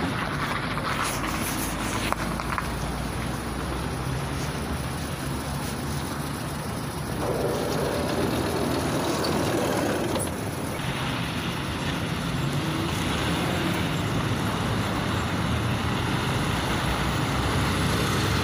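KTM-5M3 tram with DK-259 traction motors standing at a stop and then pulling away, its motors and running gear heard over steady road traffic.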